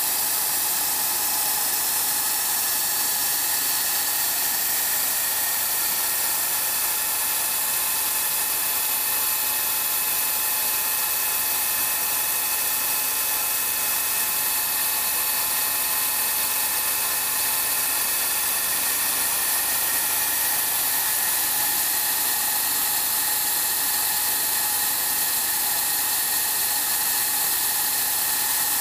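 Large face-milling cutter on a double-column gantry milling machine cutting a metal workpiece: a steady, high-pitched hiss of cutting with a few steady whining tones over it.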